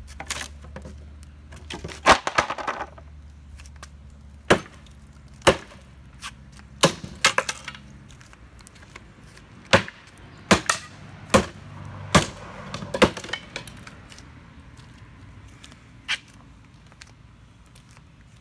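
Axe blows striking the wooden cabinet of a vintage Hammond electric organ: about eleven sharp strikes, most roughly a second apart, with wood cracking and splintering after several of them.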